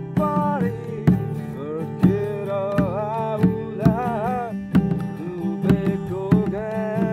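Music led by a strummed acoustic guitar, with a melody line that slides and bends in pitch above it.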